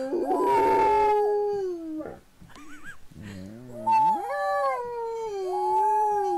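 Pet dog howling: one long howl that slowly falls in pitch, a short break with soft whines, then a second long howl from about four seconds in that steps up in pitch and eases back down.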